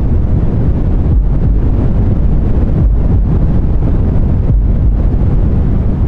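Deep white noise: a steady, dense low rumble with little treble.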